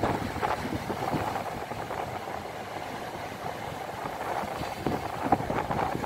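Surf breaking and washing over a rocky shore, a steady rushing that swells and surges irregularly, with stronger surges in the second half; wind buffets the microphone.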